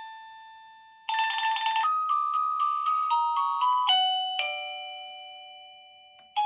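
Plug-in wireless doorbell chime receiver playing its electronic melodies. A chime note fades out, a warbling burst of tone comes about a second in, then a quick run of short beeping notes ends in a long ringing note that slowly dies away. A new chime strikes right at the end.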